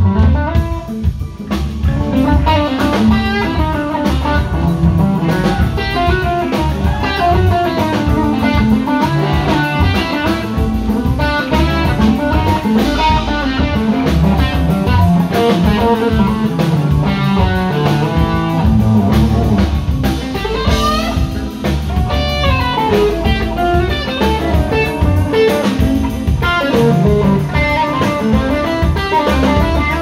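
Live Southern rock band playing an instrumental passage: electric guitars, electric bass and drum kit, with a guitar line sliding up and down over the steady rhythm.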